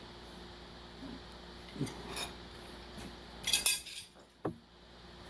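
Metal tools and parts being handled: a few scattered light knocks and a short cluster of sharp metallic clinks about three and a half seconds in.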